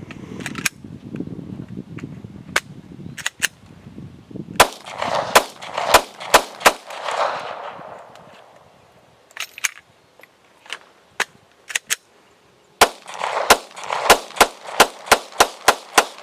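Gen 4 Glock 17 9 mm pistol firing: a few shots at first, a loud group of about six, fainter scattered shots, then a fast string of about nine shots at roughly three a second near the end. The pistol is cycling normally again once dried out, after failing to feed underwater.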